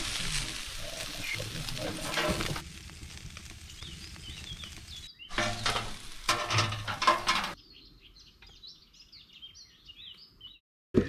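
Food sizzling over a cooking fire in two loud stretches that cut off abruptly, with small birds chirping busily in the quieter last few seconds.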